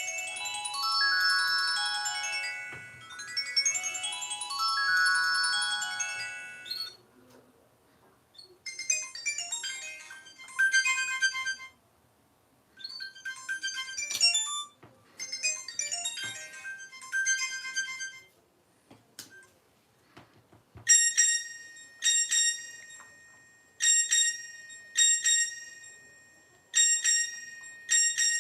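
Classic Nokia mobile phones playing ringtones one after another. First a melody phrase plays twice, then a run of short, choppy melodic phrases, then, about two-thirds of the way in, a bell-like ring that repeats in pairs.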